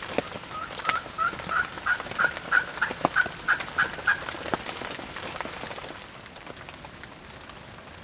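Wild turkey calling: a run of about a dozen short, evenly spaced notes, some three a second, over the first four seconds, with a few sharp clicks among them. After that it goes quieter.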